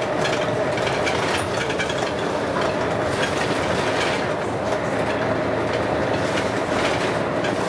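Scania L113CRL bus's 11-litre six-cylinder diesel running under way, with a steady whine over the engine noise and constant rattling from the bus's body.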